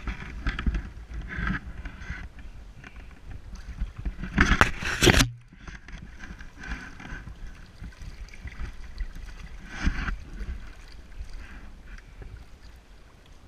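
Water splashing and sloshing as a swimmer strokes through a still pool with gloved hands, in uneven surges. The loudest splashing comes about four and a half seconds in and cuts off suddenly, followed by softer strokes.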